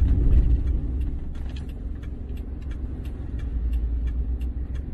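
Steady low rumble of a car driving on the road, heard from inside the cabin, with faint scattered ticks over it. It eases a little after the first second and swells again near the end.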